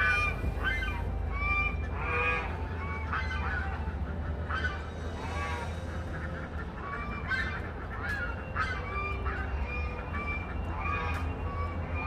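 Domestic white geese honking over and over, many short calls in quick succession.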